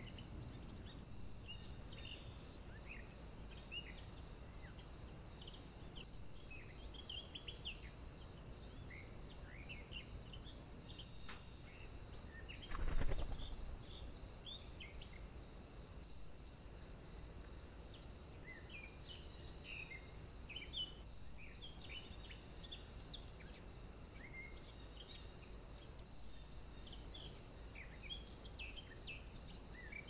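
Steady high-pitched insect chirring with an even pulse, with many short bird chirps scattered over it. About halfway through there is one brief, louder rustle.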